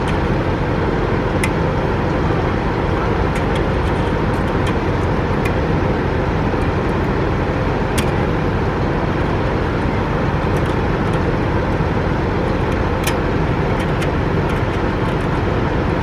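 Steady low background noise, even and unbroken, with a few faint sharp clicks as a stainless steel mesh bug screen is worked onto an RV furnace exhaust vent with a small wire tool.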